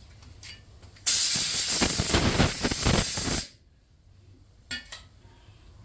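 A blast of compressed air from a blow gun: a loud hiss with a thin high whistle, lasting about two and a half seconds and cutting off sharply. A short knock follows near the end.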